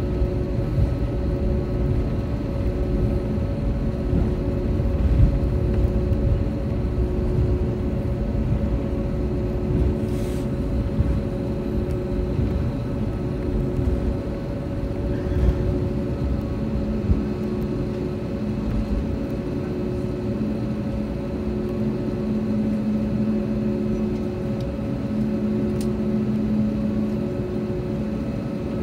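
Airbus A320 cabin noise while taxiing: a steady hum over a low rumble from the engines at idle and the aircraft rolling, with a deeper hum growing stronger about halfway through.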